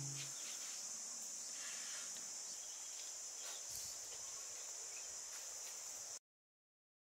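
Steady high-pitched drone of insects, with a few faint taps and clicks and a low thump about four seconds in. Guitar music fades out at the very start, and the sound cuts to silence about a second before the end.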